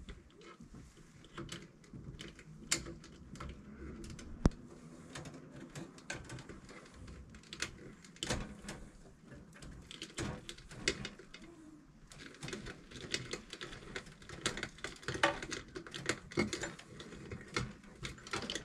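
Insulated 10-gauge wires being pushed up through conduit into a metal breaker panel: irregular small clicks, taps and scraping as the wires rub against the fittings and box, with one sharp click about four and a half seconds in.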